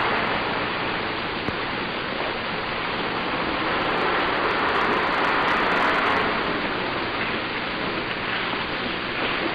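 Steady rushing noise with a rain-like hiss and no distinct events, a little louder around the middle.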